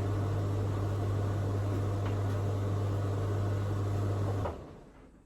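An electric kitchen appliance running with a steady low mains hum and fan noise, switched off about four and a half seconds in, then winding down.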